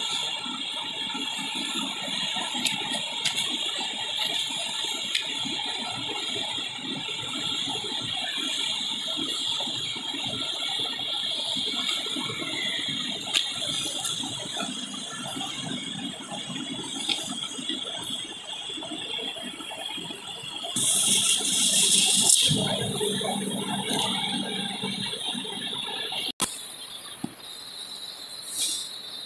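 Factory machinery running with a steady mechanical rattle and clicking. A louder burst of noise comes about three quarters of the way through, then the sound cuts off abruptly and a quieter background follows.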